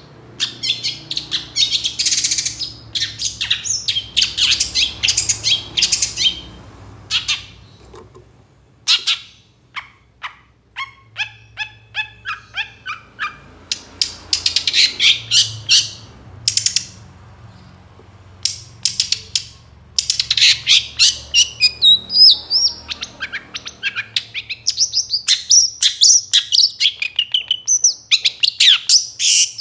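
Long-tailed shrike singing vigorously: harsh chattering bursts alternate with runs of quick clipped notes and rising and falling warbled phrases, over a faint low hum.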